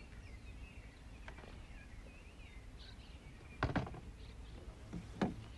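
Birds chirping and warbling over a low rumble of wind and open water. Two sharp knocks come a second and a half apart in the second half.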